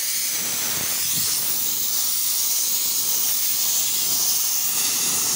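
Compressed-air paint spray gun with a gravity-feed cup hissing steadily as it sprays paint onto a steel radiator support.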